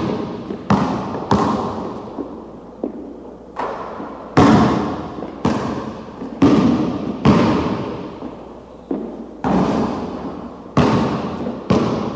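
A basketball being bounced slowly, about once a second with uneven spacing, each bounce ringing out with a long echo.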